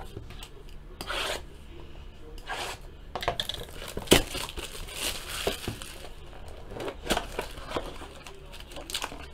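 Cardboard trading-card boxes being handled, slid and rubbed against each other, with scattered taps, the sharpest about four seconds in; near the end a box is opened and the foil-wrapped packs inside rustle.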